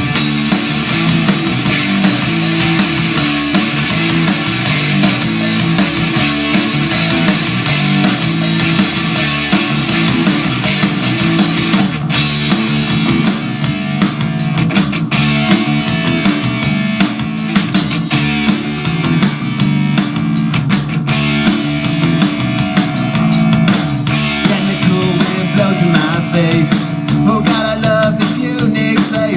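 Rock band playing a song, with guitars and a drum kit driving a steady beat.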